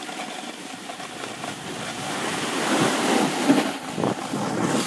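Snowboard sliding and scraping over snow, with wind buffeting the microphone, growing louder as the rider falls. There are a few sharp knocks about three and a half to four seconds in.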